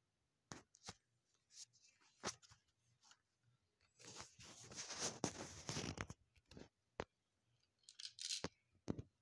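Faint handling noise close to the microphone: a few scattered small clicks, and from about four seconds in roughly two seconds of rustling and rubbing.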